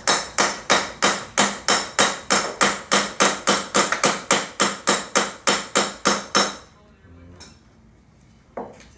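Hammer tapping rapidly on a scraper wedged under the silicone-sealed deck lid of an electric scooter, about four sharp blows a second. The blows stop about two-thirds of the way through, and one more blow comes near the end.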